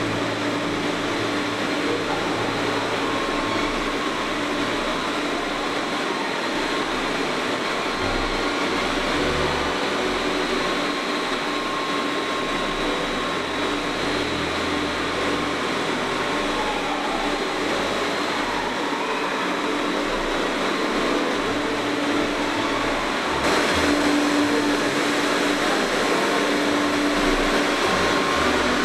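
Electric water pumps of a town pumping station running, a steady machine drone with a faint hum through it, described as quite loud. It grows a little louder near the end.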